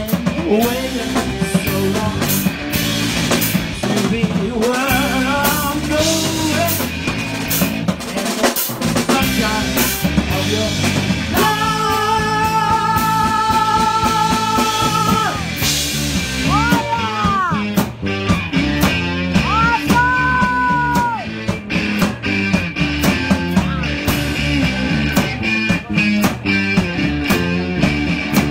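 Live rock band playing: electric guitar and drum kit with a man singing, who holds one long note in the middle, then sings shorter bending notes.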